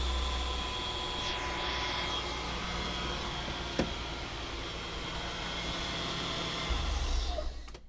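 BMW M50B25 inline-six engine running steadily at low revs after a rev, with one short click about four seconds in.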